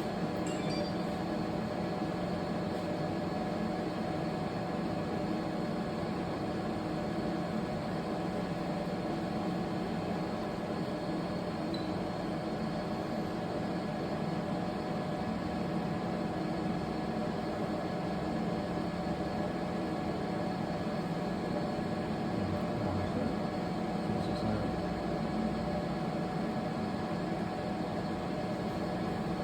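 A 3D crystal laser engraving machine running: a steady mechanical hum and whir with several constant tones, unchanging throughout.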